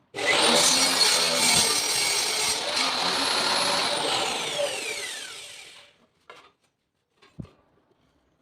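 Table saw motor switched on, its high whine climbing quickly to speed, running for about four seconds, then falling in pitch as the blade coasts to a stop after switch-off.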